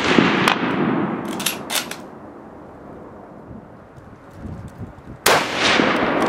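Shots from a .303 Lee Enfield No. 4 rifle. The echo of one shot dies away, then the bolt is worked with a quick run of sharp metallic clicks about a second and a half in. A second loud shot comes a little after five seconds, its report rolling away.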